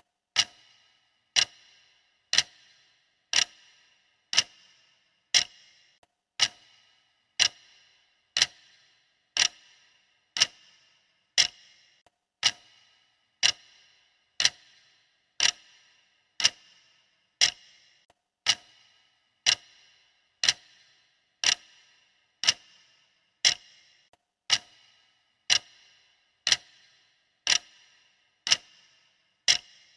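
Countdown timer's clock ticking, one sharp tick every second, each with a short ring.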